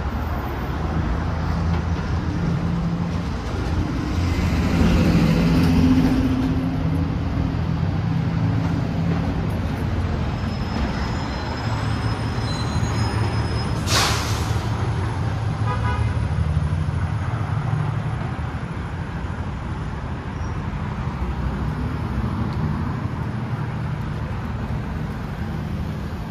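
City street traffic: vehicle engines running and passing in a steady low hum, with a few brief high tones near the middle and one sharp clack about halfway through.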